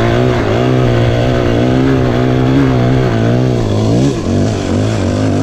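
Single-cylinder enduro dirt bike engine running under steady throttle, holding an even pitch, then easing off and picking up again about four seconds in.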